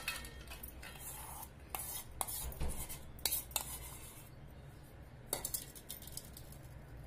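A steel spoon scraping and clinking against stainless steel bowls while scooping thick cream from one bowl into another: a string of short clinks and scrapes, most within the first four seconds and one more about five seconds in.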